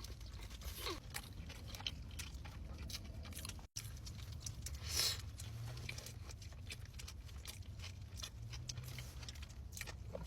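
A person chewing and biting fast food close to the microphone, with small wet clicks and crunches over a steady low hum; the sound cuts out for a moment a little under four seconds in.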